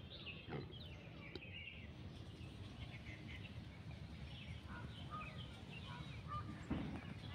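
Several small birds chirping and twittering over a steady low background rumble. A brief knock near the end is the loudest sound.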